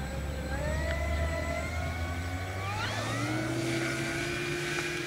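Twin electric motors and propellers of an FMS P-38 Lightning RC model whining during its takeoff roll. Their pitch climbs sharply about three seconds in as the motors speed up for takeoff, then holds steady.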